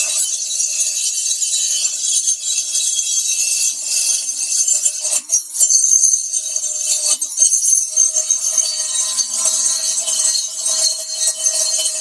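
Fein first-generation Multimaster oscillating multi-tool running, its blade cutting into galvanized perforated square steel tubing: a steady, high-pitched metallic rasping over a constant motor hum, with a brief dip about five seconds in.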